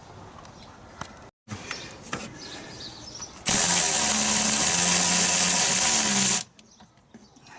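Handheld power drill spinning a bolt out: it runs steadily for about three seconds, starting midway through, then stops suddenly.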